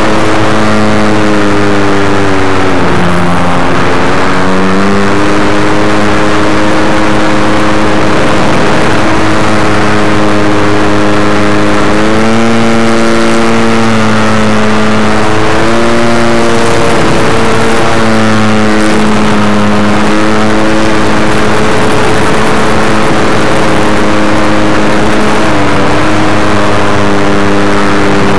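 Electric RC biplane's motor and propeller heard from a camera mounted on the plane in flight: a loud drone whose pitch shifts with the throttle, dipping briefly about three seconds in, again near the middle and near the end, over a hiss of wind.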